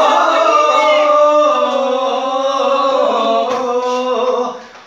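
A singing voice holding long, slowly wavering notes without words, fading out near the end.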